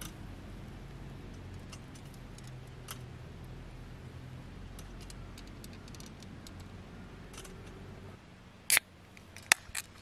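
Quiet steady outdoor background, then near the end a short sharp crack followed by two quick clicks from aluminium drink cans being handled at the table.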